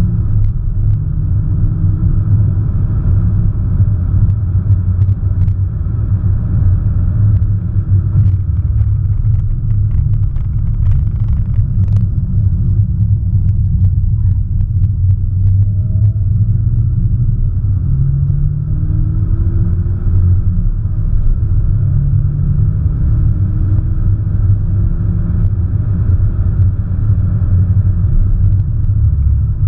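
Cabin sound of an Audi S1 Sportback driven hard: a steady low rumble of its turbocharged 2.0-litre four-cylinder engine, tyres and road, with the engine note climbing several times in the second half as the car accelerates.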